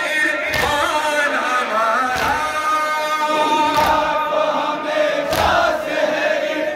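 Large group of men chanting a Shia noha (Muharram lament) in unison, with synchronized hand strikes on the chest (matam) landing as sharp slaps about every one and a half seconds.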